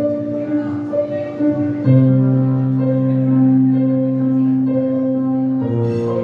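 Instrumental music with sustained chords over a steady bass line, with no singing. The chord changes about two seconds in and again near the end.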